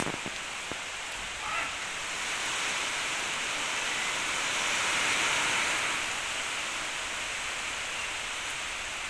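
Heavy rain pouring down, a steady dense hiss that swells a little midway.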